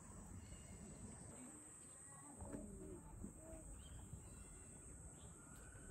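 Near silence: faint outdoor ambience with a few quiet bird calls near the middle.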